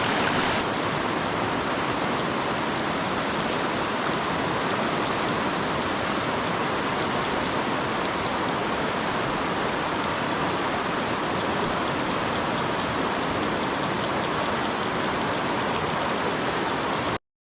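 River water rushing steadily, an even rush of flowing water that cuts off abruptly near the end.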